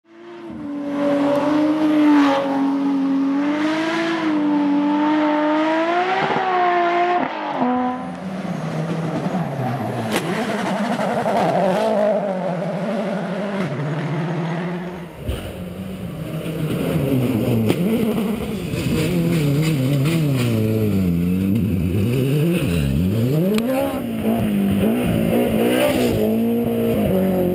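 Rally cars driven flat out on a special stage: engines revving hard, their pitch climbing and dropping sharply with gear changes and lifts of the throttle. A clear engine note for about the first eight seconds gives way to a rougher, noisier stretch, then an abrupt change about fifteen seconds in to another car revving hard with deep swings in pitch.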